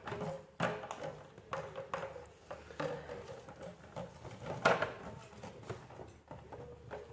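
A plastic water bottle knocking and scraping on a stone floor as a parakeet pecks and tugs at its screw cap, in irregular clacks, the loudest a little past the middle.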